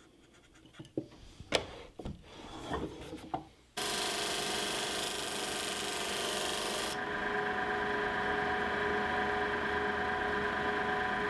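A bench chisel pares a small piece of wood in a few scraping, tapping strokes. About four seconds in, the sound switches suddenly to a disc sander running steadily with a constant hum as a small wooden piece is held against the sanding disc. The high hiss of the sanding falls away about three seconds later while the motor runs on.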